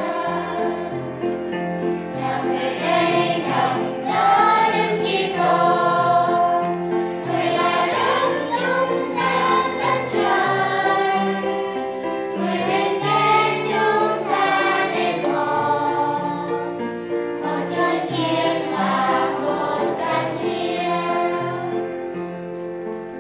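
Children's church choir singing together, the voices tailing off in the last couple of seconds.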